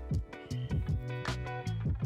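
Background music: plucked guitar-like notes over a steady bass, with a regular beat.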